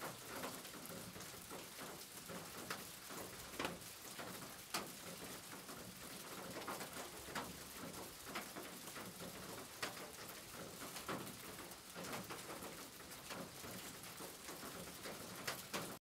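Steady rain falling on a corrugated tin roof, with sharp louder drops and drips striking every second or so at irregular intervals.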